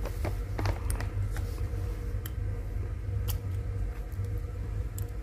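Steady low room hum with a faint steady tone, broken by a few scattered light clicks and creaks.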